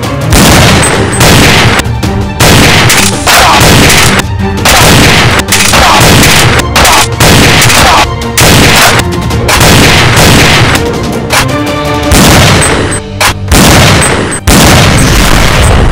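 Loud gunshot and explosion sound effects dubbed over the toy-blaster shots, one blast after another, roughly once a second.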